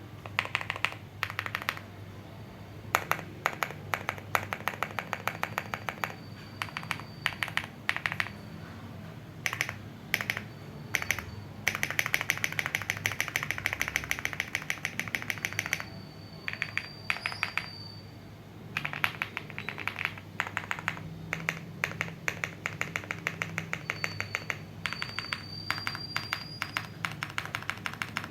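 Qwertykeys QK65 R1 gasket-mounted mechanical keyboard with an FR4 plate and lubed Gateron Pure Sky linear switches, its modifier keys being pressed in bursts of keystrokes with short pauses between. A very fast run of strokes comes around the middle.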